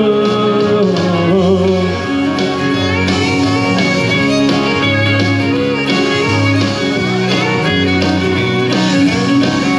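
Instrumental break of a country song: a full band with guitar and fiddle playing between sung lines.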